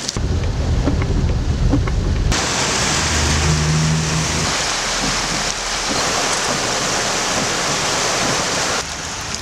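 Heavy rain and floodwater, in several cut-together shots: a strong low rumble at first, then from about two seconds in a steady rushing hiss of water, with a low engine hum from a vehicle wading through the flooded street about three to four seconds in.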